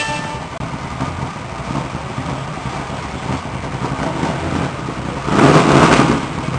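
A car engine running steadily, with a louder rush of noise for about a second near the end.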